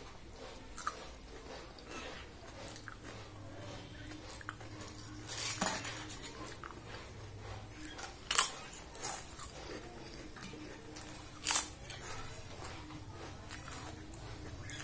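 Close-up eating: chewing with several sharp, loud crunches as pieces of fried papad are bitten off, the loudest ones in the middle of the stretch.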